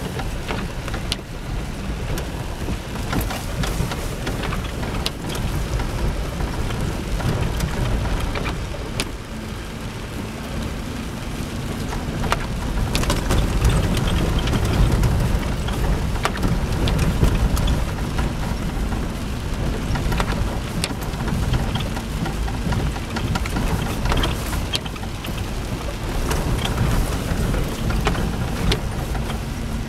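Jeep Cherokee XJ heard from inside the cab on a wet gravel trail: a steady low engine and road rumble, swelling for a few seconds about halfway through, with rain tapping on the windshield and roof and scattered sharp clicks.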